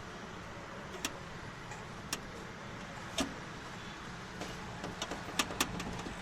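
Sharp clicks and light knocks from car door parts being handled while a rattle is tracked down: single clicks about a second apart at first, then a quicker run of taps near the end, over a steady low background noise.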